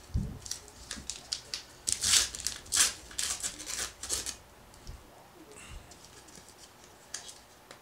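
A 2001 Bowman Heritage baseball card pack's paper wrapper being torn open and peeled back by hand: a burst of crinkling and tearing about two seconds in, followed by quieter rustling and a few light ticks as the cards are handled.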